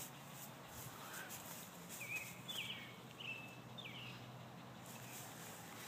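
Quiet outdoor ambience with a faint steady hum, and four short chirps from a bird about two to four seconds in, each dropping in pitch and then holding briefly.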